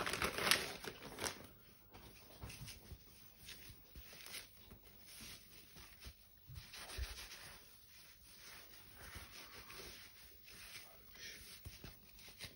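Plastic packaging crinkling for about the first second, then faint rustling and rubbing as a woven natural-fibre bath mitt is handled.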